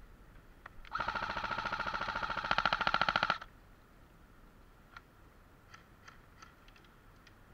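Airsoft rifle firing one rapid full-auto burst of about two and a half seconds, louder in its last second, with a few faint single shots and clicks before and after.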